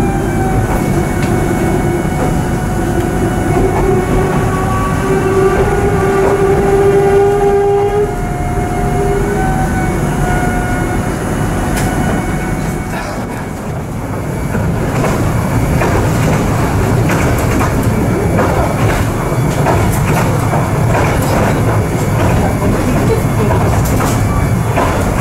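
Regional passenger train running, heard from inside the carriage: a steady rumble with wheels clicking over the rail joints. Over the first several seconds a whine of several tones sounds along with it, then fades out.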